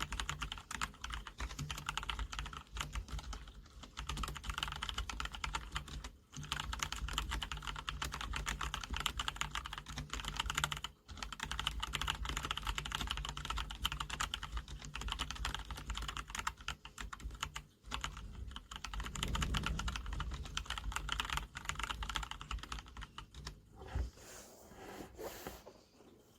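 Typing test on a SteelSeries Apex 3 RGB gaming keyboard with whisper-quiet switches: fast, continuous key clatter with a few brief pauses, thinning out near the end, over a steady low hum.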